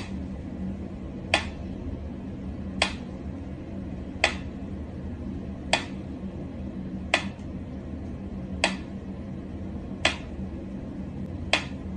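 Toy army soldier's mechanism running with a steady low hum, giving a sharp click at even intervals, about one every second and a half.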